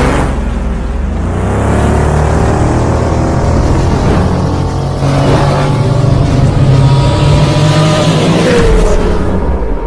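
Loud intro sound effect: a low rumble under rising, sliding engine-like tones that build through the first few seconds and hold, with a falling tone near the end.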